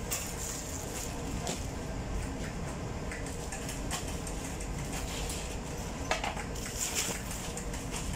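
Steady low hum of bakery machinery, with scattered short rustles and light knocks as bread rolls and plastic bags are handled on a worktable.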